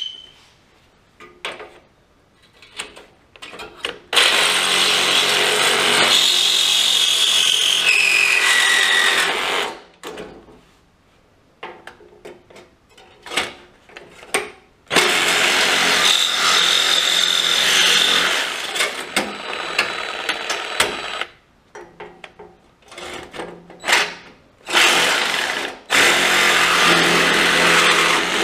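Cordless DeWalt 20V angle grinder cutting into a steel tractor fender in three runs of several seconds each, its whine sagging in pitch at times as the wheel bites. Short knocks and clicks from handling the tool and the metal come between the runs.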